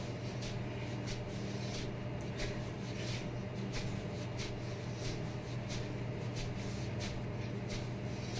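Soft rhythmic swishing and rustling, about two a second, as arms wearing wrist weights throw repeated punches, over a steady low hum.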